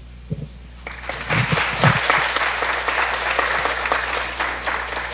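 An audience applauding, beginning about a second in and starting to die down near the end.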